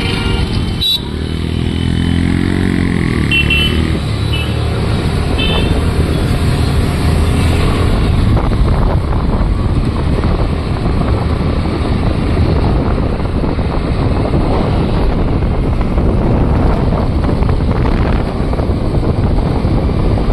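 Suzuki Burgman Street scooter's engine rising in pitch as it pulls away, then riding along steadily with wind rushing over the microphone and road noise. A few short horn toots come a few seconds in.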